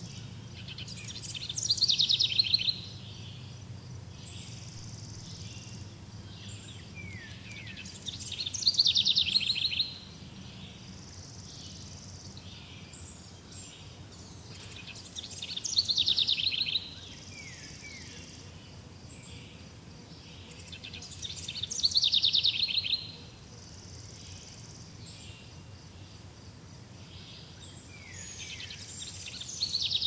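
A small bird singing the same song over and over, five times about every six and a half seconds: each a high, rapid trill of about a second and a half that builds in loudness. A steady faint background hiss lies under it.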